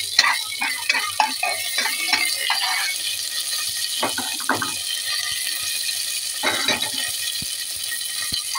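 Black mustard seeds and curry leaves sizzling in hot desi ghee in a tadka: a steady hiss with many crackling pops, thickest in the first three seconds, the sign that the ghee is hot enough for the seeds to splutter.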